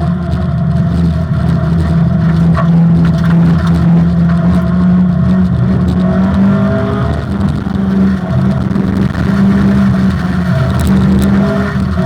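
Opel Manta rally car's four-cylinder engine running hard at speed, its pitch holding high with small rises and dips as the throttle and gears change.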